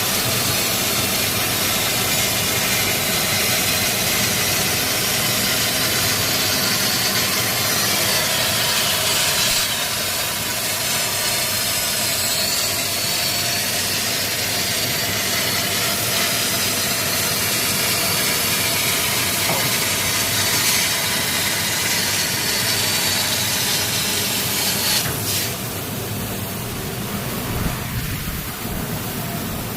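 CNC laser cutting machine at work: a loud, steady hiss over machine noise, the high part of the hiss dropping away about 25 seconds in.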